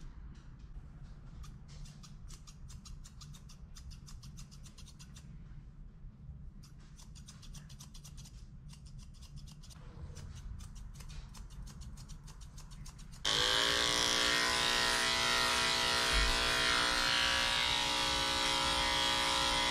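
Grooming scissors snipping a small dog's hair in quick runs of cuts. About thirteen seconds in, electric dog clippers switch on suddenly and run with a steady buzz, much louder than the snipping, as they shave the dog's tail.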